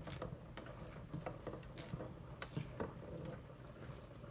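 Spatula or cooking utensil scraping and knocking against a pan as noodles are stirred and tossed: irregular clicks and scrapes, a few a second, over a low steady hum.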